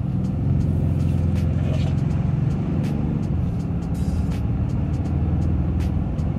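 Cab noise of a Ram 2500 heavy-duty pickup with a Cummins diesel accelerating up to freeway speed: a low engine drone under tyre and road noise. It gets louder just after the start and then holds steady.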